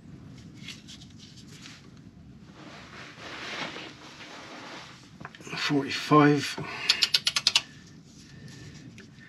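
A long-handled ratchet turning a front wishbone bolt its extra 60 degrees, the angle stage of a torque-to-yield tightening. Scraping and rubbing as the bolt turns under load, a loud creak past the middle, then a quick run of about eight ratchet clicks as the handle is swung back.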